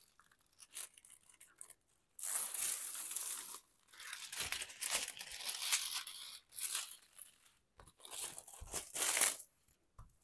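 Clear plastic film over a diamond painting canvas crinkling and rustling as hands pull it back and smooth it down, in several bursts after a quiet first two seconds.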